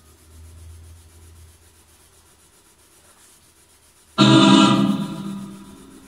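Music: an organ-like keyboard chord strikes suddenly about four seconds in and fades away over a second or two, after a faint low hum.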